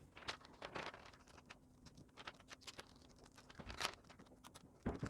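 Faint, irregular clicks and light taps of small laptop parts being handled on a workbench, with a sharper click near four seconds and a quick run of louder ones at the end. A faint steady hum sits underneath.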